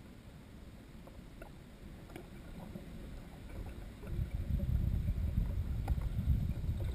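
Wind buffeting the microphone: a gusty low rumble that swells sharply about four seconds in, with a few faint ticks before it.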